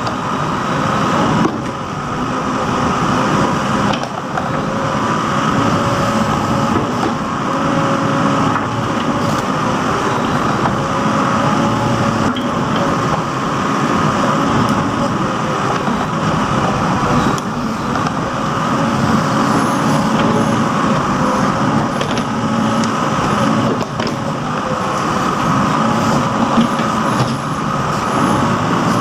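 Backhoe loader's diesel engine running steadily while digging, with a steady whine over it and a few brief dips in level.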